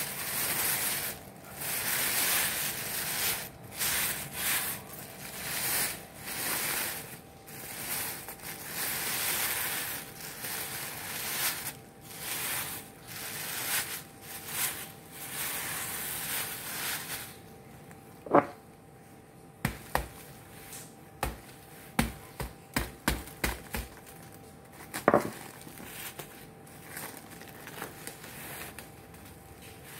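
Thin plastic bag rustling and crinkling in repeated surges as it is pulled off a clay-baked chicken. About halfway through this gives way to a series of sharp knocks, some in quick succession, as the hardened clay crust is struck and cracked open.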